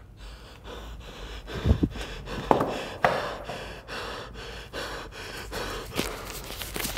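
A man breathing heavily, in a series of gasps.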